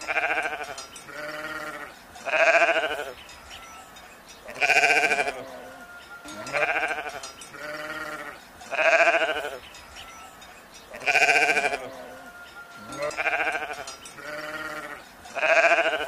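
Sheep bleating over and over: a quavering bleat every second or two, with louder and softer calls in turn. The same run of bleats comes round again about every six and a half seconds, as in a looped recording.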